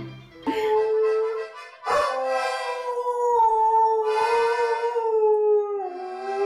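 A dog howling along to a child's toy accordion, in two long drawn-out howls: a short one about half a second in and a longer one from about two seconds in that sinks in pitch near the end, over the accordion's steady reedy notes.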